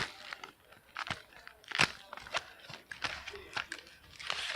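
Fidget spinner packaging being opened by hand: irregular crinkling, crackling and sharp snaps, with a longer rustle near the end.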